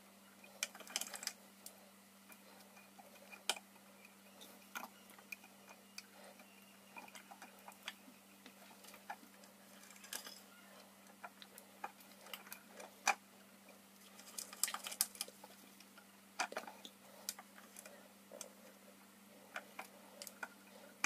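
Shop-made tap being turned by hand into a tool-steel die blank: faint, irregular clicks and ticks as the tap cuts the thread, some coming in short clusters, over a steady low hum.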